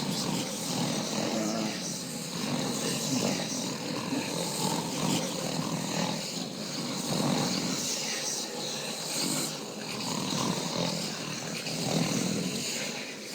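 Many men snoring together, their snores overlapping in irregular swells.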